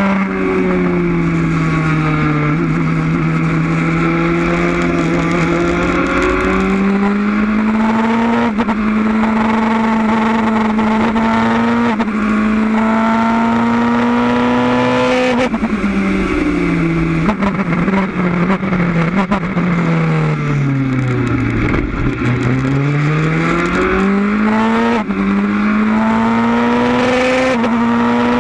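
Wolf GB08 sports racer's engine heard onboard, pulling hard through the gears with several upshifts, then dropping through a run of downshifts as the car slows, before accelerating and upshifting again near the end.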